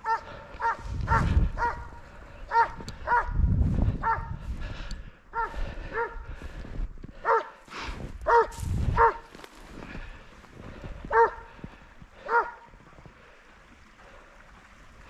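A hunting hound baying in short, high yelping barks, about fifteen in all, some in quick pairs, stopping a couple of seconds before the end: the hound giving voice as it runs a hare or fox on the trail. A low rumbling noise comes three times between the barks.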